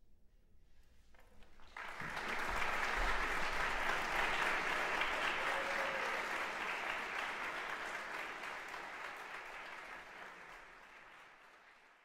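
Audience applause that breaks out suddenly about two seconds in at the end of a percussion ensemble piece, then gradually fades away.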